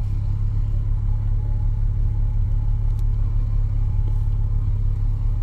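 Motorcycle engine running steadily under way: a constant low-pitched hum with rapid fine pulsing.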